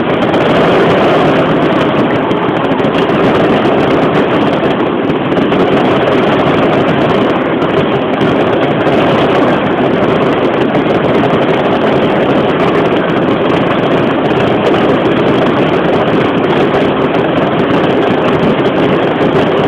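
Fireworks display: a loud, steady, distorted rumble in which no separate bangs stand out.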